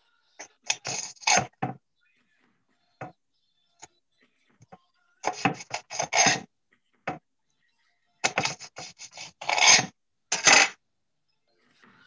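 Kitchen knife chopping garnish (chives and red chili) on a cutting board: three runs of quick, rapid strokes with short pauses between.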